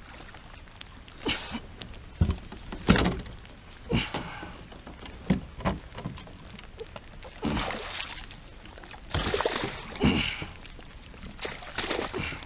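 A small muskie splashing at the side of a kayak while it is played in and netted: irregular splashes and sharp knocks, the loudest about three seconds in.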